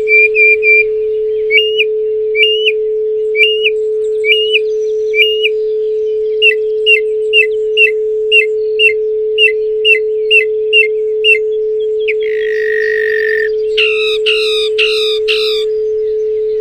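A steady pure tone at 432 Hz with a songbird singing over it. The bird gives evenly spaced short chirps, then a quicker run of sharp notes, a buzzy note about twelve seconds in, and four ringing downslurred notes near the end.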